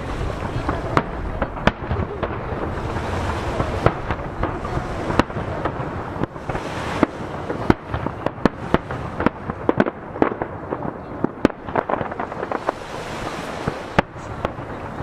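Aerial firework shells bursting one after another in many sharp bangs, which come thickest in the second half, with the reports echoing off nearby mountains. Waves breaking against the jetty make a continuous wash underneath.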